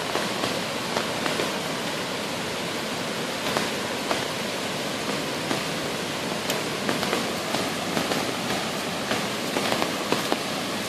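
A creek in flood rushing steadily, an even wash of water noise with many small sharp ticks scattered through it.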